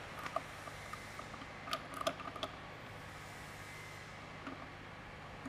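Hand tools clicking and clinking against metal while the supercharger hold-down bolts are fitted and tightened on the engine: a few scattered sharp clicks, most of them about two seconds in, over a faint steady hum.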